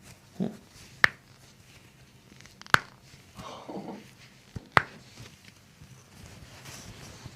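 Joints cracking during a chiropractic adjustment: three sharp pops about two seconds apart, with a softer thump before the first.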